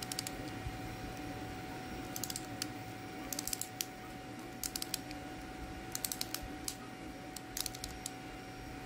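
Print-in-place 3D-printed PETG ratchet wrench's ratchet mechanism clicking over its little gear teeth as it is turned by hand. About six short bursts of rapid clicks, a second or so apart, over a faint steady hum.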